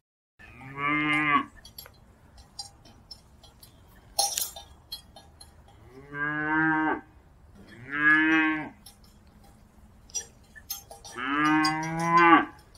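A cow mooing four times: long, low moos about a second each, spaced a few seconds apart. A short, sharp clink comes about four seconds in.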